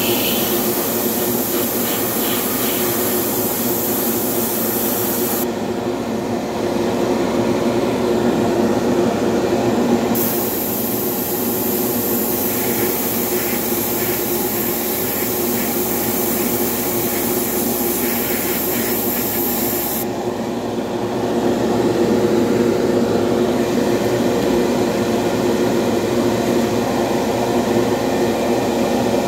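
Airbrush spraying paint with an airy hiss that stops about five seconds in, starts again about ten seconds in, and stops again about twenty seconds in. Under it runs a steady motor hum.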